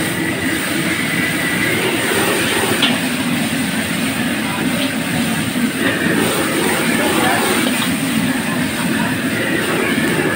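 Octopus pieces sizzling in hot oil in a wok over a gas wok burner running at full flame, a steady rushing noise, with a metal ladle scraping and tapping against the wok a few times as it is stir-fried.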